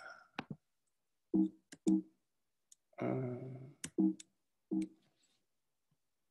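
Sharp clicks, typical of a computer mouse being clicked while trying to advance a stuck slide, mixed with several short pitched tones. The longest tone lasts under a second in the middle.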